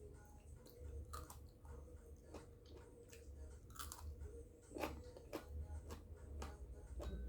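Close-up chewing and biting of crisp mango flesh: irregular wet crunches and smacks, a few a second.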